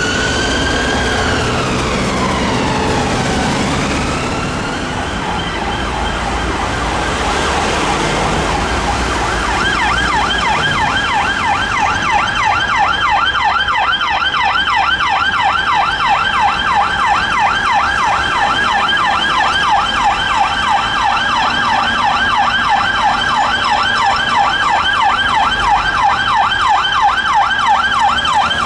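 An ambulance siren wailing in slow rising and falling sweeps at first. About a third of the way in, a Ford Focus police car's siren takes over on a fast yelp, about four sweeps a second, growing slightly louder and carrying on.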